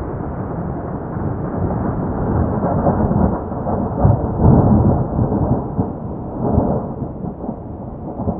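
Rolling thunder from a heavy thunderstorm: a long, low rumble that swells to a few loud peaks around the middle and fades toward the end.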